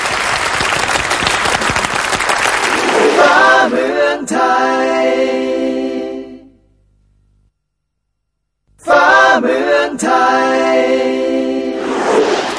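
Studio audience applauding, then the show's sung bumper jingle, voices holding a chord, which fades out into about two seconds of silence. The jingle starts again, and applause returns near the end.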